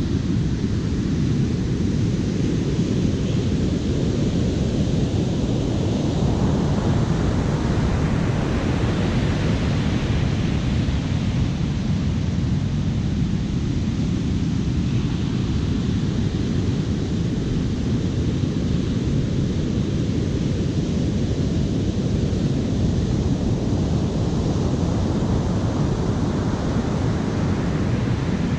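Wind rumbling on the microphone over ocean surf. Waves break and wash in with a rising hiss about six seconds in and again near the end.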